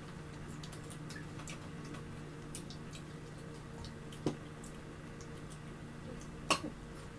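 A person chewing and eating with their fingers: many small wet mouth clicks and smacks, with two sharper knocks, one a little past the middle and one near the end. A steady low hum runs underneath.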